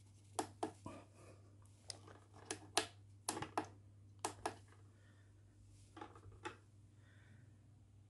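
About a dozen sharp plastic clicks in small groups as the push button on a Halloween novelty sound box is pressed again and again. The box plays nothing: it is not working.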